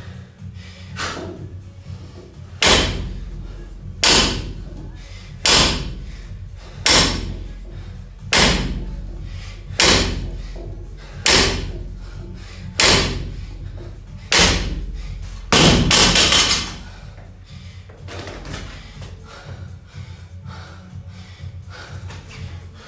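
Loaded barbell with 20 kg rubber bumper plates thudding onto a wooden lifting platform at each deadlift rep, about one impact every one and a half seconds, ten in a row. The last one, near the end of the set, is a longer, louder clatter as the bar is set down and left.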